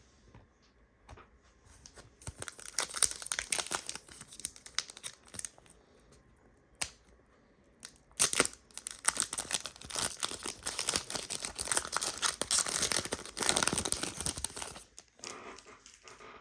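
A trading card pack's foil wrapper being torn open and crinkled, in two spells of a few seconds each with a short pause and a single click between them.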